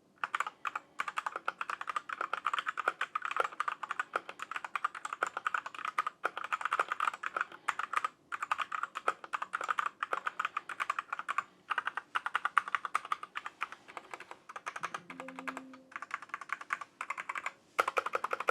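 Typing on a Redragon K617 Fizz 60% mechanical keyboard with red linear switches: a fast, continuous run of keystrokes with a couple of brief pauses.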